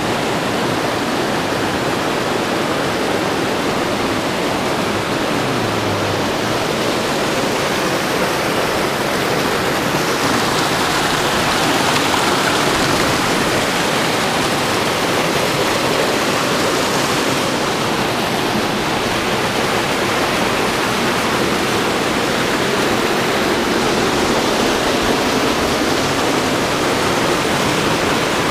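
Mountain creek rushing over boulders in a small cascade, a steady loud rush of white water close to the microphone, growing a little stronger about ten seconds in.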